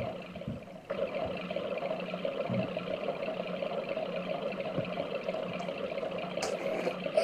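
Electronic keyboard playing a held novelty sound-effect patch: a short burst at the start, then from about a second in a steady, rough, water-like sound that keeps going.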